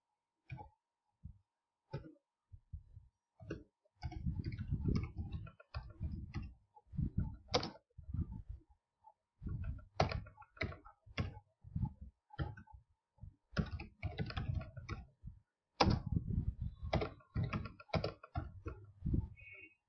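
Computer keyboard being typed on: quick runs of key clicks in irregular bursts, broken by short pauses.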